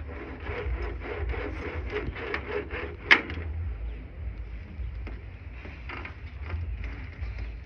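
Lashing line being pulled through and wrapped around the pegs of an outrigger canoe 'iako on the ama: short rubbing and scraping strokes, with one sharp click about three seconds in, over a steady low rumble.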